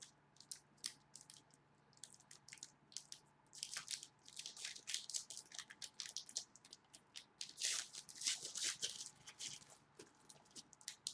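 Foil wrapper of a football trading card pack being torn open and crinkled: a few light crackles at first, then a dense run of crinkling and tearing for several seconds.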